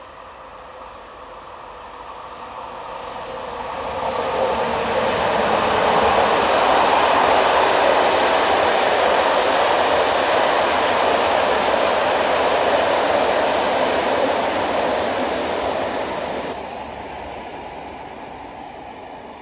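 Passenger train of Corail coaches passing at speed, a rushing noise of wheels on rail that builds up, holds loud for about ten seconds, then cuts off suddenly near the end to the quieter sound of a more distant train.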